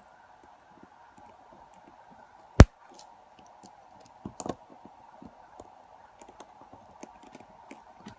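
Small metal clicks and scrapes of a tool prying at a lock cylinder's retaining clip, with one sharp loud click about two and a half seconds in and a short cluster of clicks a couple of seconds later.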